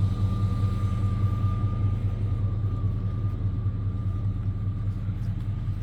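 An engine running steadily at idle: an even low rumble with a faint steady whine above it.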